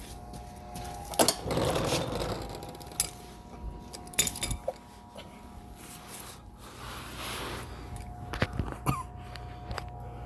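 Scattered clicks, light metallic clanks and rustling of tools and parts being handled, over a faint steady hum.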